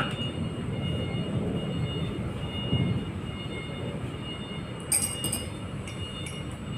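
Steady low machinery rumble with a faint high whine, broken by a few short metallic clicks and clinks as the milling tool's motor is taken off.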